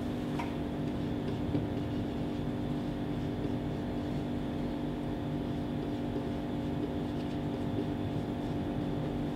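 Steady low room hum with a few even tones, and faint scratches of a marker writing on a whiteboard.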